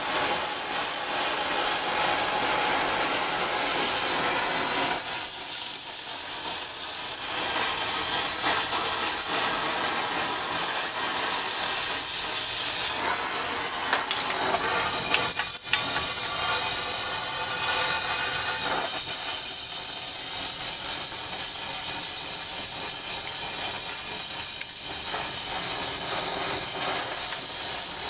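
Gas brazing torch flame hissing steadily as a bicycle frame's bottom bracket lug is brazed, with a single short knock a little past halfway.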